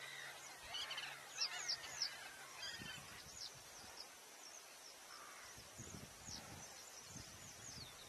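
Caged canaries chirping with short calls and quick high downward-swept notes, a busy cluster in the first couple of seconds, then scattered single chirps. A few soft low thumps come in the second half.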